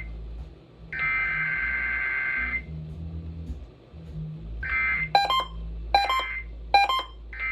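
Emergency Alert System SAME header tones: a buzzy burst of two-pitch digital data lasting about a second and a half, starting about a second in, and another burst starting near the five-second mark. From about five seconds a run of short sharp beeps repeats roughly once every 0.8 s.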